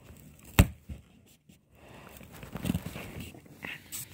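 Knocking and rustling inside a cardboard box: one sharp knock against the cardboard about half a second in, then softer bumps and rustling of hands and blankets against the box walls.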